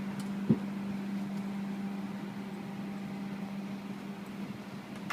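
Steady low machine hum holding one even tone, with a single dull thump about half a second in.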